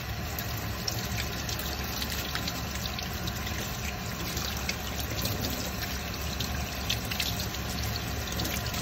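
Kitchen tap running steadily into a sink, with small irregular splashes as the water strikes the basin.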